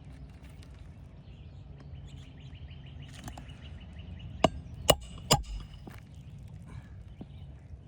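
Hammer striking roofing nails through asphalt shingles: three sharp strikes about half a second apart, about halfway through.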